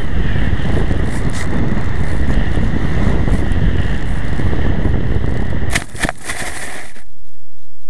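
Onboard audio of a small FPV model aircraft: the electric motor's steady whine and wind rushing over the microphone as it flies fast and low over grass. About six seconds in come several knocks as it touches down, and the motor noise cuts off about a second later.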